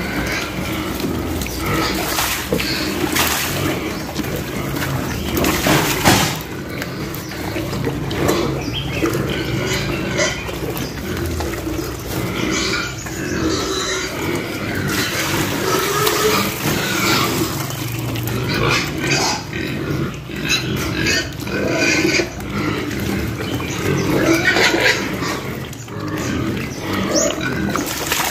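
A litter of piglets crowded at a trough, eating soaked bran mash: a constant jumble of pig noises and eating sounds.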